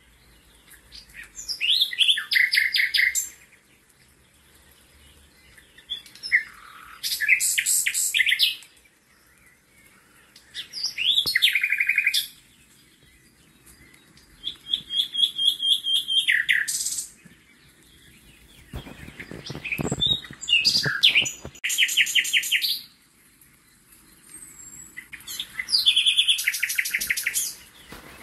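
A songbird singing short phrases of sharp chirps and fast trills, one phrase every four to five seconds. A rustling or splashing noise comes in about two-thirds of the way through.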